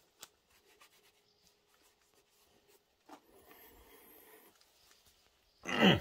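Faint rubbing and small clicks of handling, then a short loud scrape near the end, falling in pitch.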